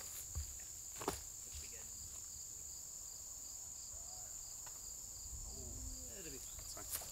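Insects droning steadily in one high-pitched band, with a faint regular pulsing beneath it. Faint distant voices are heard about four to six seconds in.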